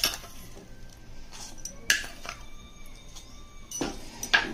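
Metal spoon clinking against a stainless steel saucepan while stirring sugar into freshly boiled milk: a scatter of sharp clinks, the loudest about two seconds in and again near the end.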